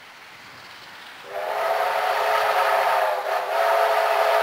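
Victorian Railways J class steam locomotive's whistle sounding a long blast that starts suddenly about a second in, a chord of several steady tones that dips briefly partway through.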